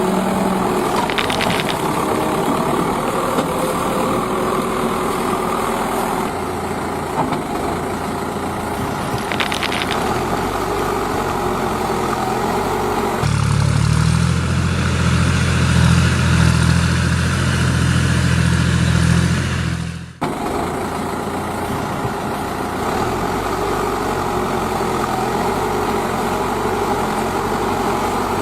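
Heavy diesel engines of earthmoving machinery running steadily. About halfway through, an engine runs louder and deeper for several seconds, then the sound breaks off abruptly and the steady running resumes.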